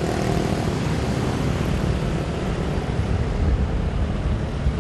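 Steady city street traffic noise, a dense rumble of engines with a windy hiss over it and no single vehicle standing out.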